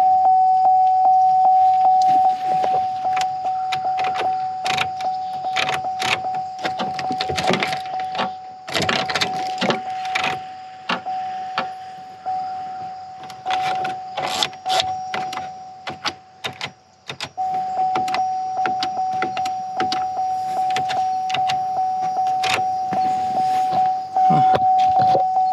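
A steady electronic tone at one fixed pitch sounds almost throughout, breaking off briefly a couple of times. Scattered sharp clicks and knocks are heard over it.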